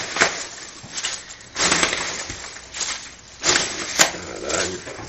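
Foam packing peanuts rustling and crunching as they are scooped by hand into a crinkling plastic carrier bag, in several short bursts with a sharp click about four seconds in.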